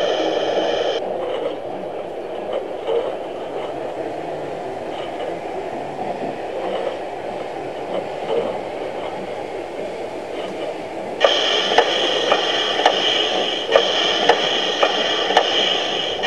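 LGB garden-scale model trains running on the track. A steady high whine with evenly spaced clicks, about two a second, stops about a second in and comes back near the end, over a steady running rumble.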